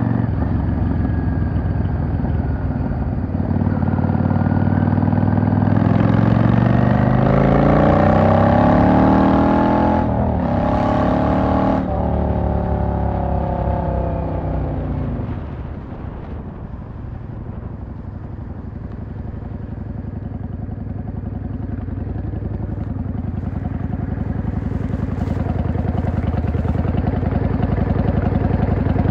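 Yamaha XVS 650 V-Star's air-cooled V-twin under way, its pitch rising as it accelerates, with a gear change about ten seconds in and another climb after it. The throttle then closes and the engine drops to a low, steady run in the second half, slowly getting louder toward the end.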